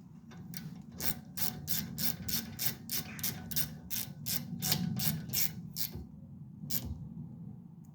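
Ratchet socket wrench clicking in a steady run, about three to four clicks a second, as a brake caliper bolt is tightened, with a last single click near the end.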